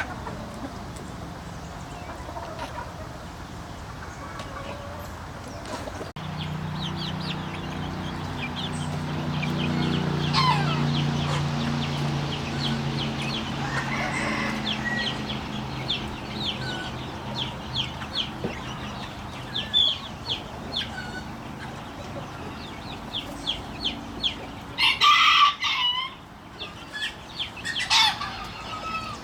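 Chickens clucking and calling in a flock, many short calls, with a rooster crowing loudly near the end. A low steady hum comes in about six seconds in and fades away later.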